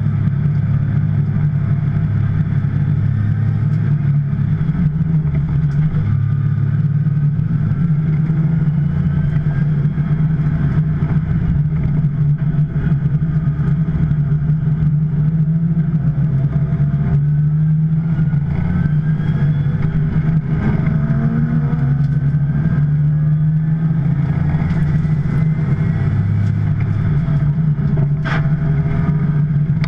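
Porsche 911 Turbo's twin-turbo flat-six running under way, a steady low drone whose pitch climbs several times as the car accelerates.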